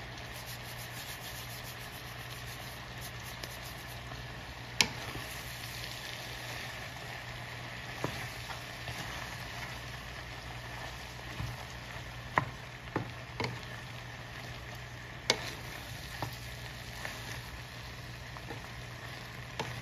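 Sliced beef liver, tomatoes and onions sizzling steadily in a skillet as they are stirred with a wooden spoon. A few sharp clacks of the spoon on the pan come through, the loudest about five seconds in and about fifteen seconds in.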